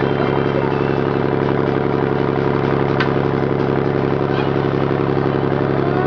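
Motor boat's engine running steadily at cruising speed, with the hiss of water along the hull.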